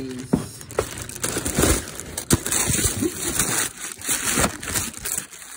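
Tissue paper and fabric wrapping rustling and crinkling close up as it is handled and pulled apart, with irregular sharp crackles.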